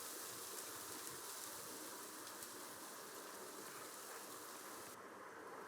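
Steady, faint rain falling, a soft even patter of drops. The higher hiss drops away suddenly near the end.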